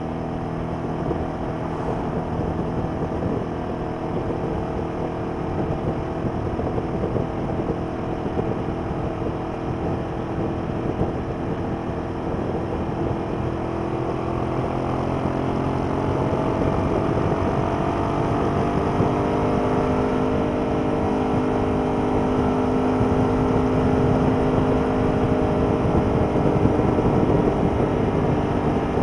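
Ducati Paul Smart 1000 LE's air-cooled L-twin engine running hard at speed. About halfway through, its note climbs steadily as the bike speeds up, then holds at the higher pitch and gets a little louder.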